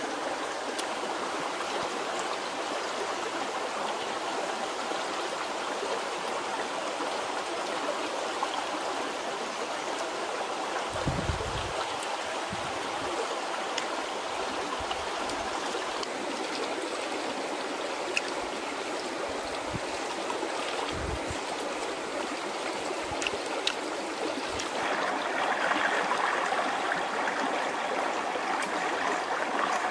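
Steady rushing of a flowing stream, louder over the last few seconds, with a few soft low thumps around the middle.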